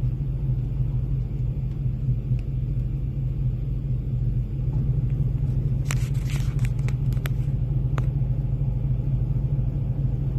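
Steady low rumble of a car's engine and road noise, heard from inside the cabin, with a brief cluster of clicks about six seconds in.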